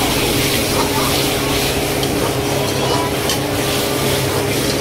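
Sauce sizzling in a hot wok while a steel ladle stirs and scrapes through it, with a few light ladle knocks against the wok midway. A steady low hum runs underneath.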